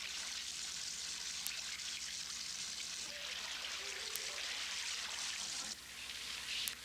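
Water running into a bathtub, a steady hiss that drops away abruptly about six seconds in.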